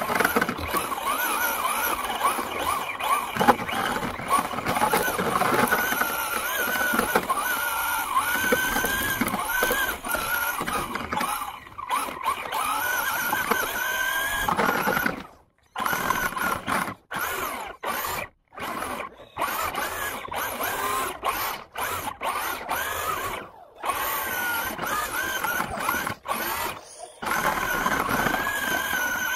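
Battery-powered radio-controlled truck's electric motor and gears whining, the pitch rising and falling with the throttle as it drives through snow. In the second half the sound cuts out briefly and comes back several times.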